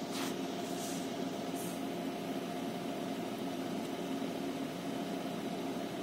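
Steady hum of a Renault Scenic II running with its air conditioning on: the climate blower and the idling engine, with a few faint short hisses in the first two seconds.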